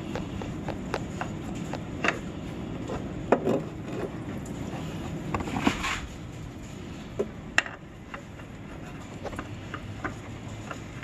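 Spin-on oil filter on a lawn tractor engine being twisted off by hand and a new filter threaded on: scattered light clicks and scrapes, with a short scuffing rustle around the middle and a sharp click a little later.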